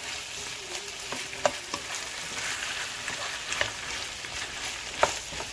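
Diced chicken breast and potatoes frying in a nonstick pan: a steady sizzle, stirred with a wooden spatula that knocks against the pan a few times, the sharpest knock about five seconds in.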